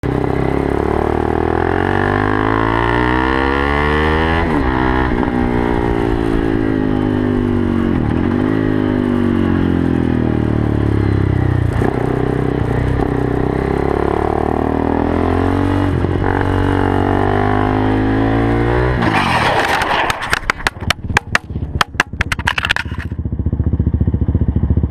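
KTM RC390's single-cylinder engine through a Yoshimura dual undertail exhaust, ridden hard, its pitch climbing and dropping every few seconds through throttle and gear changes. About 19 seconds in, the engine note stops and gives way to a run of sharp, rapid clattering noise.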